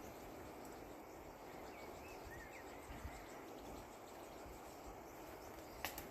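Faint outdoor ambience: a steady hiss with a few short chirps about two seconds in and a single sharp click near the end.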